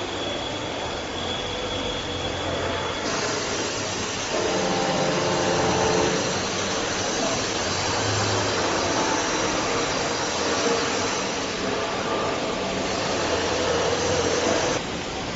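Multi rip saw's spindle lift drive running as the spindle is jogged up and down, a steady mechanical noise with a motor hum that shifts several times as the jog keys are pressed.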